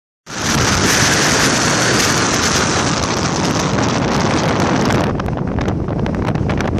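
Strong wind buffeting the microphone: a loud, steady rush that cuts in just after the start, with crackles in the second half.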